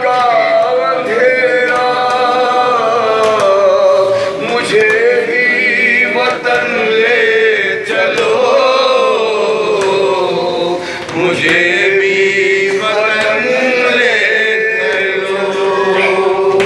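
A man's voice chanting an Urdu noha, a Shia lament, unaccompanied. He sings long, wavering held notes in slow phrases, with brief breaks for breath between them.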